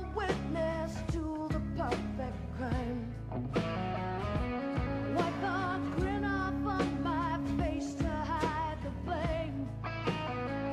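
Pop-rock song with a woman singing over electric guitar, bass and drums.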